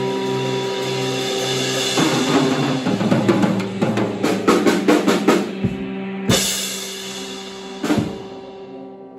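TAMA drum kit played solo: a fast, dense fill of rapid drum strokes starts about two seconds in, then two heavy accent hits follow, and the sound dies away near the end. A steady held tone from backing music sounds underneath.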